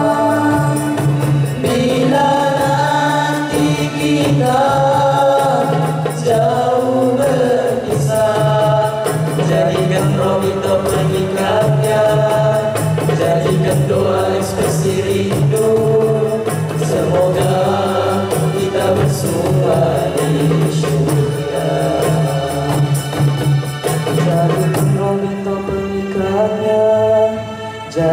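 A group of boys singing together through microphones, their melody moving over a low held note.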